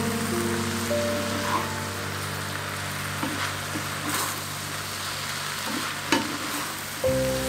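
Shredded cabbage, carrot and turkey sizzling in a frying pan, turned with a wooden spatula that scrapes and knocks against the pan a few times, sharpest about six seconds in. Soft background music plays underneath and gets louder near the end.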